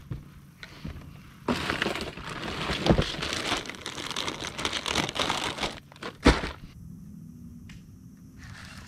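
Crinkling of a plastic soft-bait bag being handled, with a single sharp knock about six seconds in.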